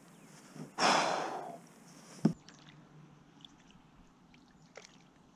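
A short splash of water about a second in: a live baitfish on a float rig thrashing at the surface. A sharp click follows a little later, then only faint small ticks.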